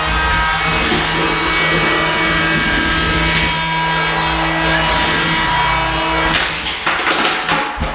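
Small combat robots' electric motors whining steadily, with several sharp hits and scrapes near the end as the robots collide.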